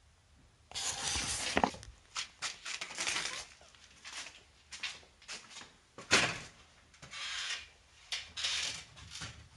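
Irregular rubbing and brushing noises broken by sharp knocks and clicks, the loudest knock about six seconds in.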